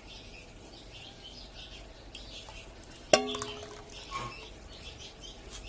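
Quiet kitchen background with a single sharp clink of metal kitchenware about three seconds in, ringing briefly before it dies away.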